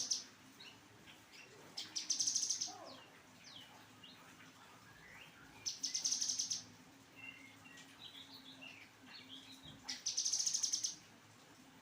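A songbird repeating a fast, buzzing trill in high bursts about a second long, three times, with softer chirps and short whistles between them. A faint steady hum runs underneath.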